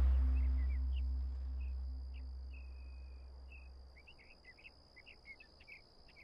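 A low musical drone fades out over the first four seconds. Under it runs a steady high insect trill, with many short bird chirps scattered through and one longer level note near the middle.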